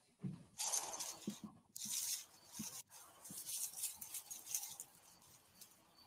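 Dry leaf litter and twigs rustling and crunching in irregular bursts as a mountain lion and her kittens walk past a trail camera, picked up by the camera's own microphone. The rustling starts abruptly and dies down after about five seconds.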